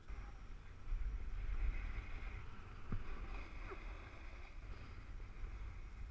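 Snowboard sliding and scraping over groomed snow, a steady rushing hiss, with wind rumbling on the action camera's microphone and a short knock about three seconds in.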